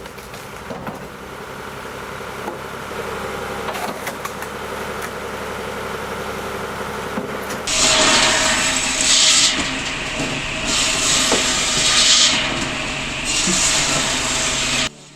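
A log-processing machine runs steadily, then about halfway through a much louder, harsh noise of the machine working through wood starts. It swells and eases in three or four passes and cuts off sharply near the end.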